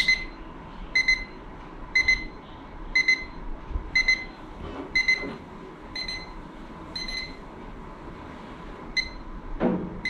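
Small Sumikko Gurashi alarm clock's countdown timer going off: a high double beep repeating about once a second, signalling that the timer has run out. The beeps pause briefly near the end, then sound twice more.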